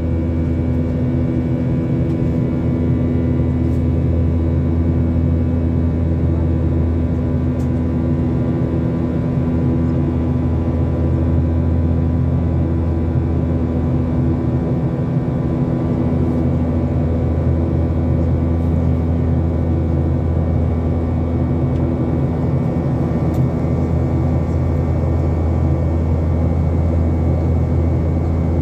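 Jet airliner cabin noise in flight: a steady low rumble from the wing-mounted turbofan engine and airflow, with a few steady whining tones on top, unchanging throughout.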